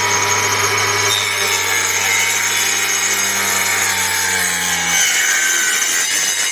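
Knock-off Makita 18V cordless circular saw with a 125mm blade running and cutting through a board about 18mm thick. A steady motor whine runs under the rasp of the blade in the wood, and a low hum drops out about five seconds in.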